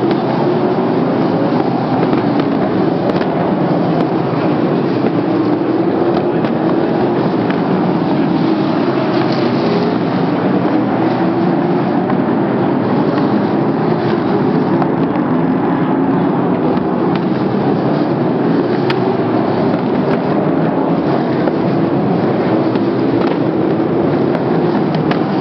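Several sprint car V8 engines racing at full throttle in a loud, continuous roar whose pitch rises and falls in slow waves as the cars accelerate and lift.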